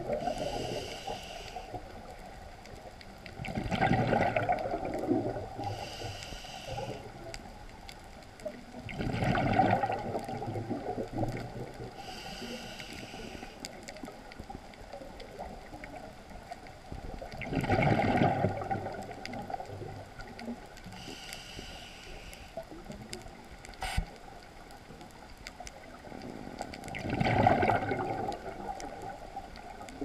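Scuba regulator breathing underwater: a short hiss on each inhale, then a bubbling rush of exhaled air, four breaths spaced several seconds apart. One sharp click about two-thirds of the way in.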